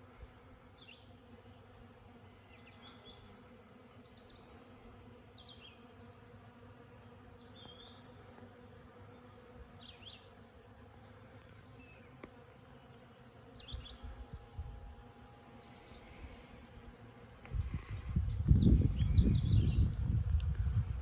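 Bees foraging on lilac blossoms, buzzing in a steady low hum, with faint bird chirps over it. About three-quarters of the way through, a much louder, uneven low rumble comes in and lasts to the end.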